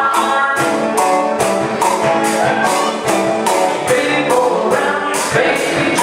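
A live band playing a song: sung vocals over acoustic guitar, keyboard and percussion, with a steady beat of about two and a half strikes a second.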